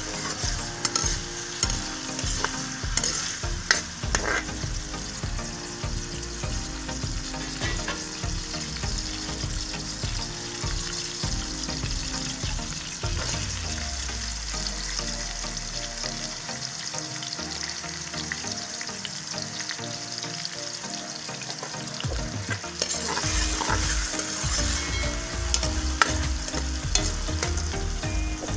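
Freshly added sliced onions sizzling in hot oil in a pan, with a metal ladle scraping and clicking against the pan as they are stirred. The sizzle and stirring settle down through the middle and pick up again near the end.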